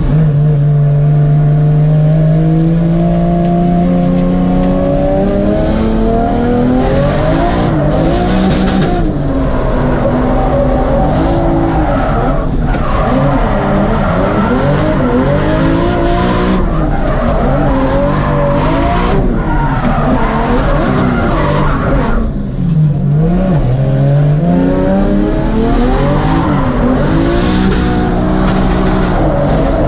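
Toyota JZX100 drift car heard from inside the cabin: the engine revving up and down over and over as the car is held in a drift, with tyres skidding and squealing. About two-thirds of the way through the revs drop sharply, then climb again.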